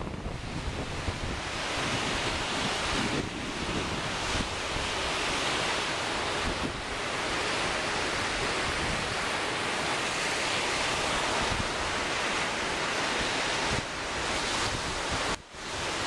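Strong gusting wind buffeting the microphone over lake waves breaking on the shore, a dense steady noise of wind and surf. The wind noise drops out briefly about half a second before the end.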